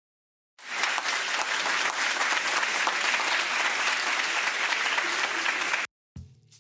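Recorded applause, a steady crowd clapping, fading in about half a second in and cutting off abruptly near the end; music with a drum beat starts just after.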